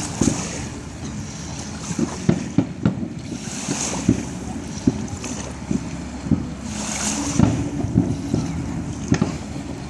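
Fireworks bursting at a distance: a run of sharp booms about every half second to a second, some in quick succession around two to three seconds in, over a steady rumble of wind on the microphone.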